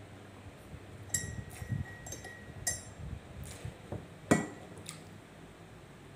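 Ceramic tableware clinking and knocking a few times during a meal. A clink just past a second in rings on with a thin tone until nearly three seconds in. The loudest knock comes a little past four seconds.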